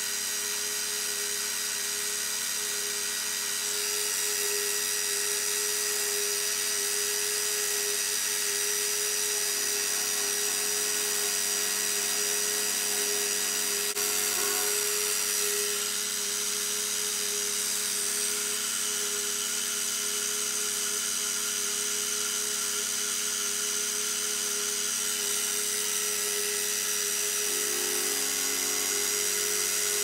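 Benchtop milling machine running steadily with a small 3 mm end mill cutting a groove in a metal plate, the cutter taking about 3 mm per pass.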